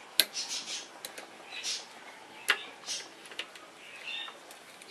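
Sharp metal clicks and short scrapes as a retaining ring is worked into its groove at the top of a motor-scooter front fork tube with a pointed tool. The loudest click comes near the start.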